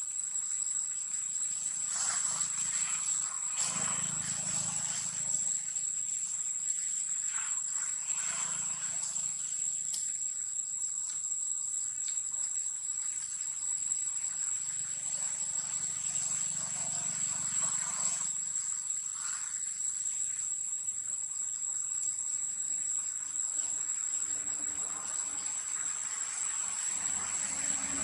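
Steady high-pitched drone of insects singing, with a few faint brief rustling noises over it.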